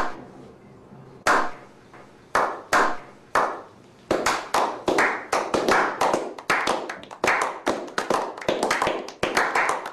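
A slow clap by a small group of men: single hand claps about a second apart at first, then from about four seconds in others join and the clapping quickens to a few claps a second.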